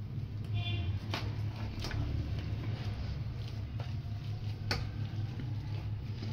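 Hand potato masher working boiled potatoes in a steel bowl: soft squashing with a few sharp clicks of metal against metal, about three in all. A steady low hum sits underneath.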